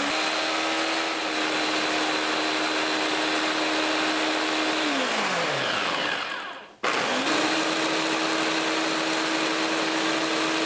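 Ninja countertop blender running on its Smoothie program, blending spinach, mint leaves and water into a smooth purée. The motor hums steadily, spins down with a falling pitch about five seconds in, then starts up again with a rising whine and runs steady.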